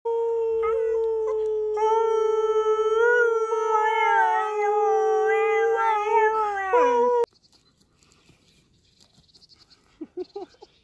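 Alaskan malamute howling: one long howl of about seven seconds, wavering in the middle and dropping in pitch as it ends, then cut off sharply. A few faint short sounds follow near the end.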